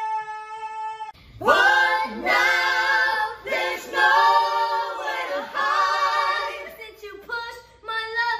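A family of adults and children singing together a cappella, several voices holding long notes with vibrato and shorter notes near the end. Before that, a steady held tone cuts off about a second in.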